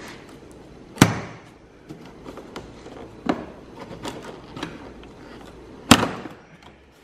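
Plastic door trim panel of a BMW E46 being pulled free of the door: sharp plastic snaps and knocks, the loudest about a second in and near the end, with smaller clicks and creaks between.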